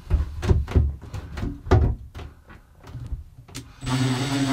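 A series of irregular knocks and taps against the wall and basin. Then, a little under four seconds in, a cordless drill starts and runs steadily.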